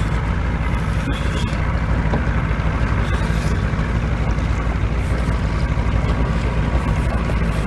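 Fishing boat's motor running steadily at trolling speed, with a constant rush of wind and water noise over it.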